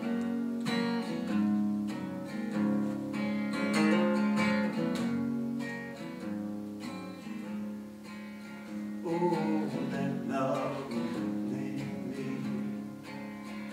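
Acoustic guitar strummed in a steady rhythm, a song's instrumental introduction; from about nine seconds in, a man's voice joins softly without clear words.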